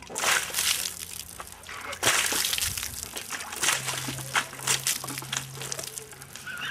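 Water spraying and splashing in irregular spatters, growing louder about two seconds in.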